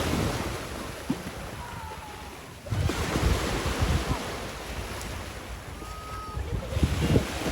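Strong wind buffeting the microphone in gusts, with a sudden surge about a third of the way in.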